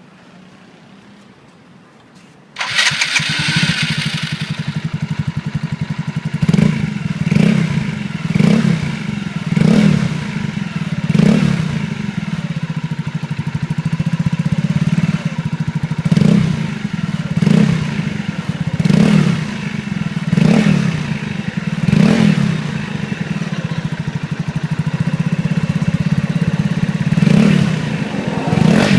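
Yamaha Mio scooter with an aftermarket exhaust pipe starting about two and a half seconds in, then idling with about a dozen short throttle blips that rise and fall.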